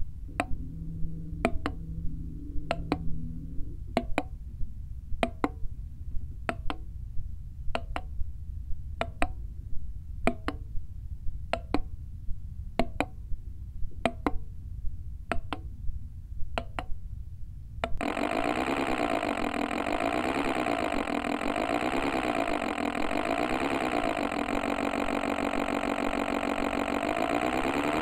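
Simulated two-stroke Detroit Diesel 60° oddfire V14 engine sound. Sharp ticks repeat about one and a half times a second. About two-thirds of the way in, the engine note switches on abruptly and runs at a steady idle with an uneven, warbling beat. Near the end its pitch begins to rise as the rev sweep starts.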